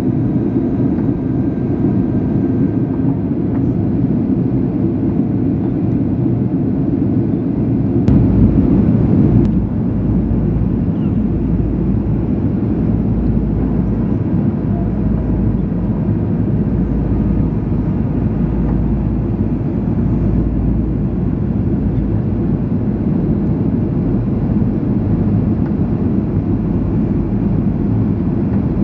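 Steady cabin noise of a Boeing 737-700 in flight, heard from a window seat over the wing: the constant rush of the CFM56 jet engines and airflow. About eight seconds in it briefly gets louder, and after that the deep rumble is stronger.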